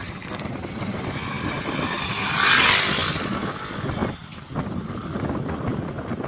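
Sea wind buffeting the microphone in an uneven rumble, with one loud hissing rush about two and a half seconds in.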